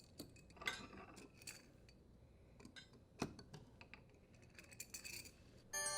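Faint scattered clicks and light metallic taps of hand-tool work on a dishwasher's adjustable leveling legs, one sharper click about three seconds in. Near the end a bright, ringing chime begins.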